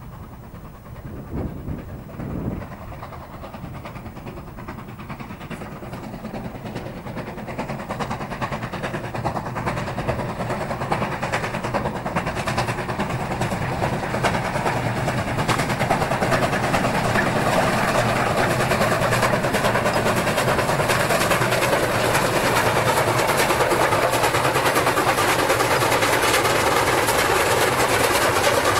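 Two QJ class 2-10-2 steam locomotives double-heading a train, their rapid exhaust beats growing steadily louder as they approach, working hard. Two brief louder sounds come about one and a half and two and a half seconds in.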